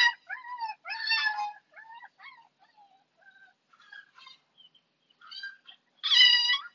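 Siberian Husky puppy crying in high-pitched yelps and whines: a loud cry at the start, a run of fainter wavering whimpers, then another loud cry about six seconds in.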